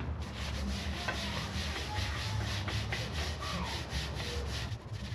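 Rapid back-and-forth hand rubbing strokes, about four to five a second, as decades of grime are scrubbed or sanded off a 1930s studio light.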